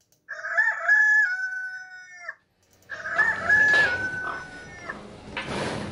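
A rooster crowing twice, each crow about two seconds long with the same pitch that steps down and then holds. The second crow comes over a background of noise with other short sounds, the loudest a brief burst near the end.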